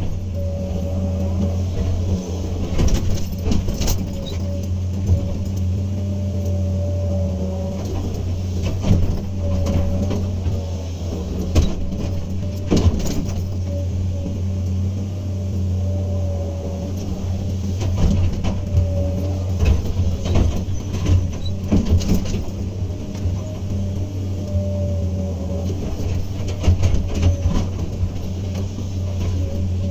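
Hydraulic excavator working: the diesel engine runs steadily under a wavering whine, with scattered knocks and clatter from the digging and loading.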